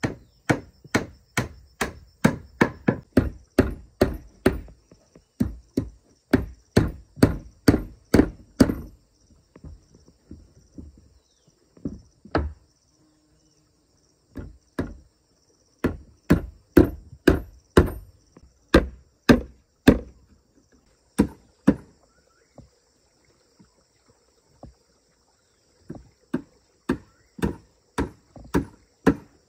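Hammer nailing wooden planks: runs of quick, sharp strikes, about two to three a second, with short pauses between nails. A steady high insect buzz continues underneath.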